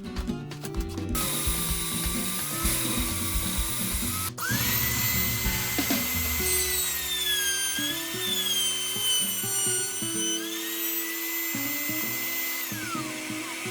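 Electric drill motor whining as it spins up quickly about four seconds in, dipping and wavering in pitch for a moment as if under load, then running steadily before winding down near the end. A steady hiss starts about a second in.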